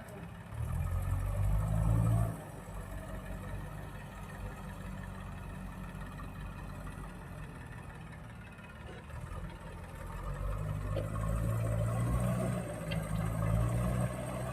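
JCB digger's diesel engine running, growing louder twice as it is worked harder, briefly near the start and again for the last few seconds, and running more quietly in between.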